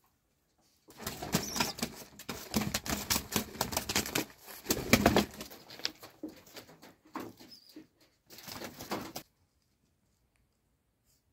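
A pigeon's wings flapping and beating in a struggle as a kitten grabs and holds it, a dense run of flutters and scuffles starting about a second in, loudest around the middle, stopping about two seconds before the end.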